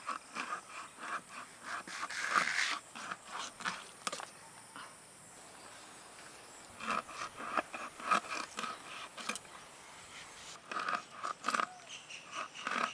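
Hilsa fish being cut on a bonti blade: a run of short crunching, scraping strokes as the blade goes through flesh and bone, with a pause of a couple of seconds in the middle.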